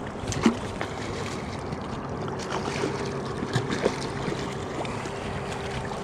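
Hooked cutthroat trout splashing at the surface and water sloshing as it is drawn toward a landing net, with many short, sharp splashes and drips.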